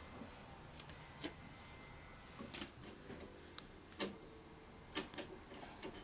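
Scattered sharp clicks and taps, about eight of them, irregularly spaced over a quiet background.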